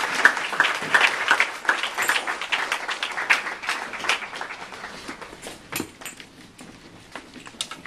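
Audience applauding, the clapping loudest at first and then thinning out and fading away over several seconds.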